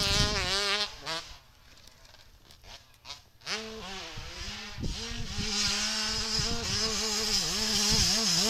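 Yamaha YZ125 two-stroke dirt bike engine revving, its pitch rising and falling. It fades out about a second in, goes almost quiet for about two seconds, then comes back and grows steadily louder as the bike approaches.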